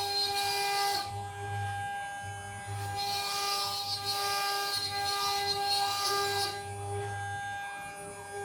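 CNC router spindle whining at a steady pitch while cutting a decorative partition panel. A hissing cutting noise comes and goes every few seconds as the bit moves through the pattern.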